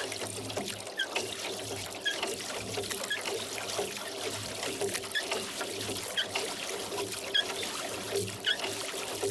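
Rowboat oars dipping into and pulling through lake water, with water trickling and dripping off the blades. Small splashes recur about once a second.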